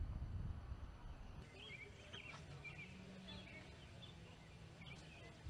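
Birds chirping faintly in short repeated calls over low outdoor background noise.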